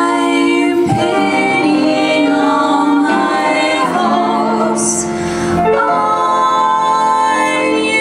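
Female vocal trio singing in close harmony with long held notes, backed by piano and drums.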